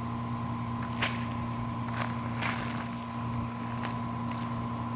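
A steady mechanical hum with a higher whine held on one pitch, under a few soft rustles and scrapes of hands sifting through dumped soil for potatoes, about a second, two seconds and two and a half seconds in.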